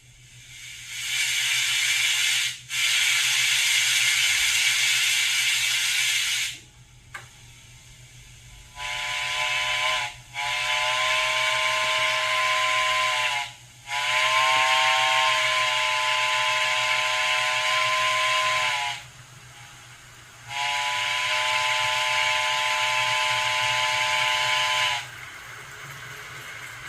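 Vintage Tenshodo model-railway sound box playing synthesized steam-locomotive effects. A loud steam hiss lasts about five seconds. After a pause come four chord-whistle blasts over hiss, the first short and the rest several seconds long.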